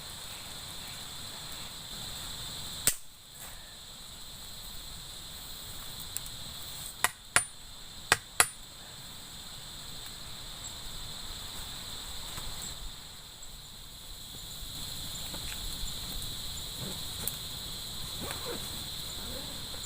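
Steady high insect buzz, a chorus of crickets, with five sharp cracks or knocks cutting across it: one about three seconds in, then four in quick succession a few seconds later.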